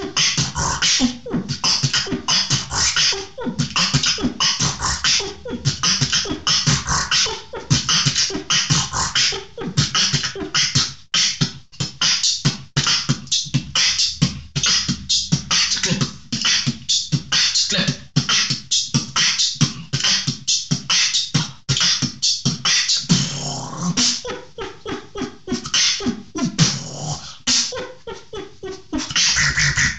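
Solo human beatboxing: a fast, dense run of mouth-made drum hits with hissing high sounds over low bass sounds.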